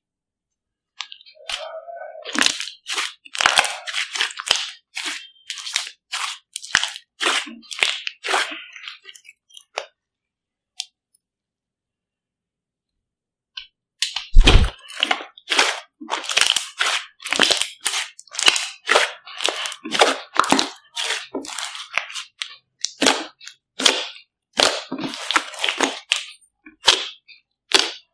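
Large mass of homemade slime being stretched, folded and pressed by hand, giving rapid sharp pops and crackles. The sound drops out for a few seconds midway, then resumes with a dull thump and more dense popping.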